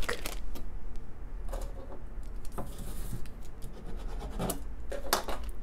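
Thin clear plastic toy bag crinkling and rustling in the hands as it is handled, in irregular crackles.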